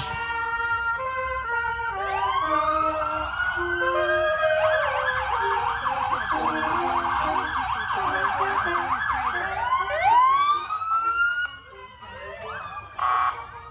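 Police SUV's electronic siren sounding: a slow rising wail, then a fast yelp for about five seconds, then a wail again. A few held trumpet notes are heard at the start.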